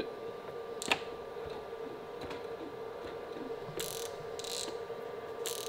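Penn International 80 wide reel fitted with a Hooker Electric drive being disengaged by hand. A sharp click comes about a second in, then three short rasping bursts from the reel's mechanism near the end, over a steady hum.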